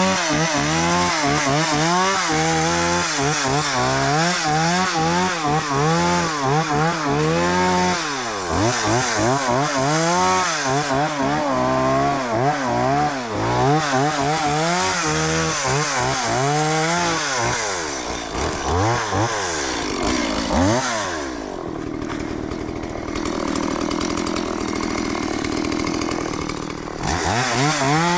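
Gasoline chainsaw revving up and down over and over as it cuts young trees, its pitch rising and falling every second or so. About two-thirds of the way in it drops to a lower, steadier sound for several seconds, then revs high again near the end.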